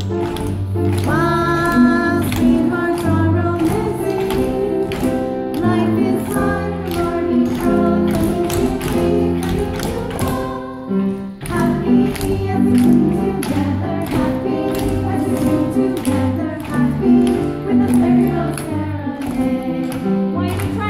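Music with voices singing, with a short lull about eleven seconds in.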